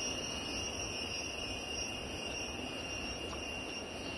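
Steady, unbroken high-pitched buzzing of insects over an even background hiss.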